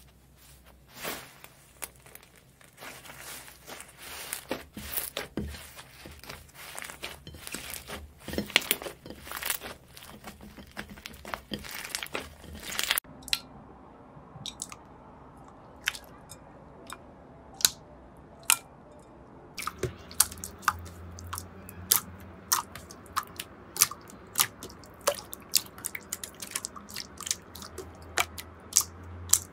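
Hands pressing, poking and stretching slime, making a run of sticky pops and crackling clicks as air pockets burst. About 13 seconds in the sound changes from dense crackling to sparser, sharper single pops.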